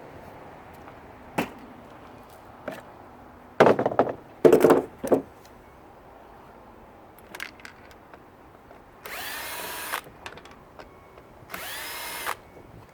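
Power drill-driver run in two short bursts of just under a second each, its motor whine rising as it spins up. Earlier, a few loud knocks and rattles of parts being handled.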